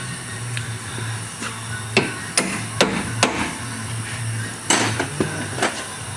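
Hammer blows on metal during strut work: four sharp strikes about half a second apart starting about two seconds in, then a louder strike and a few lighter knocks near the end, over a steady low hum.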